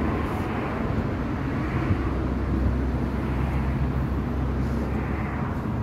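Steady low rumble and hiss of motor-vehicle noise, swelling slightly now and then.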